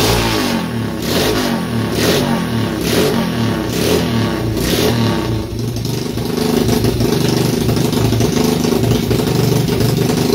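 110cc pit bike engine, a single-cylinder four-stroke, running on a test stand and revved in quick bursts about twice a second. About six seconds in it settles into a steadier run.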